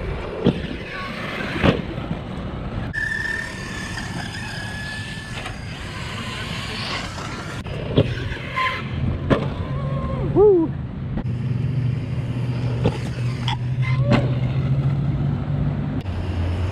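Electric RC truck running over dirt: a high steady motor whine for a couple of seconds, several sharp knocks as it bounces and lands, and a steady low hum through the second half.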